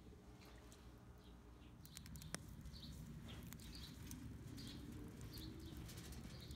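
Near silence, then from about two seconds in, a wood fire burning down to coals crackles with scattered sharp pops, one louder than the rest. Small birds chirp repeatedly in the background.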